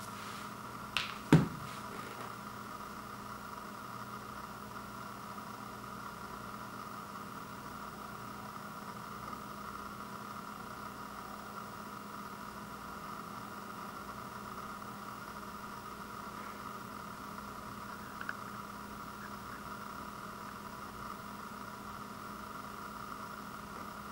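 A book-style CD case set down on a wooden floor: a light tap, then a sharper knock about a second in. After that only a steady background hum, with one faint tick later on.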